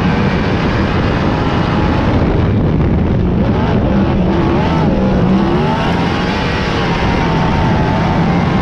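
Lightning sprint car engines running at race speed, several engine notes overlapping and rising and falling in pitch.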